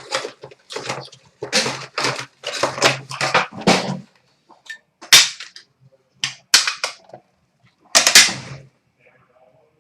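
Crackling and tearing of card-box packaging as a box of hockey trading cards is opened, in a string of short sharp bursts with pauses between them.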